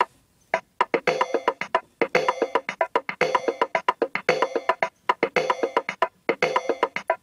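Background music: a ticking percussive beat that fills out about a second in with keyboard-like pitched notes over the same rhythm.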